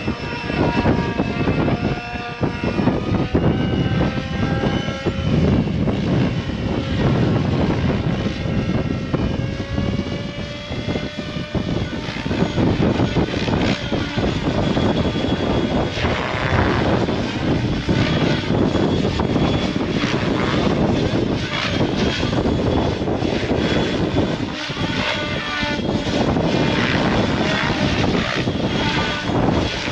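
Goosky RS7 electric RC helicopter in flight on its low head-speed setting. Its motor whine and rotor noise shift up and down in pitch through the first dozen seconds, then hold steadier, over wind buffeting the microphone.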